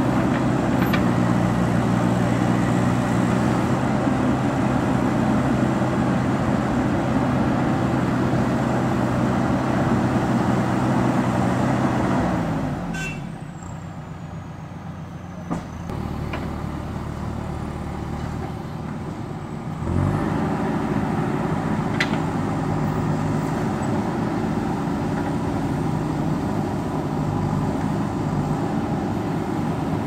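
JCB backhoe loader's diesel engine working under load as the backhoe bucket digs into a hillside. About halfway through, the revs drop and it runs quieter for several seconds, then it revs back up and runs steadily again.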